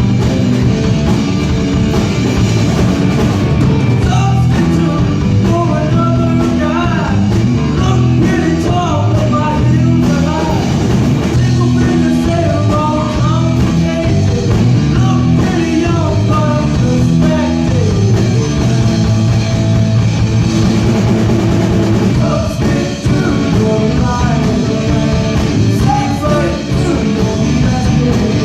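Rock music with a singing voice over drums and guitar, playing loudly and continuously.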